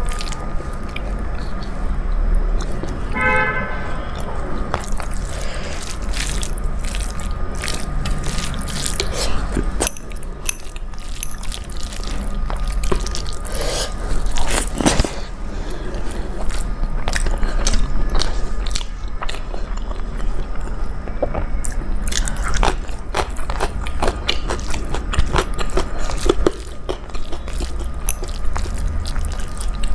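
A person eating a home-cooked dal-rice meal close to the microphone: chewing and wet mouth sounds with many small clicks all through.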